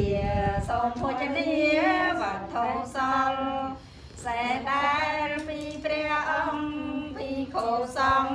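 Buddhist chanting by a group of women's voices in unison, long held notes sliding up and down, with a short breath pause about four seconds in.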